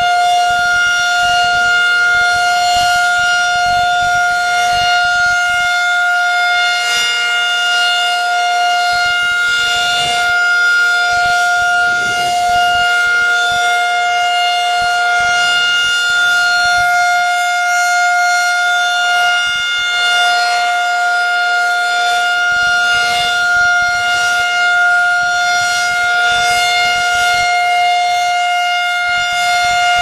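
Federal Signal 2001 DC rotating outdoor warning siren sounding a steady, loud single-pitch tone, the alert (steady) signal, with no rise or fall in pitch. The level swells and dips slightly as the horn turns on its pole.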